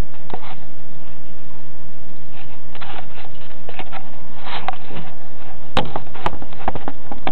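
Handling noise as speaker wires and a subwoofer are moved about on a wooden table: scattered light clicks and knocks, bunched together about six seconds in, over a faint low hum.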